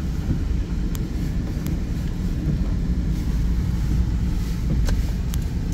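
Steady low road rumble of a moving car heard from inside the cabin, engine and tyres on a wet, slushy road, with a few faint ticks scattered through it.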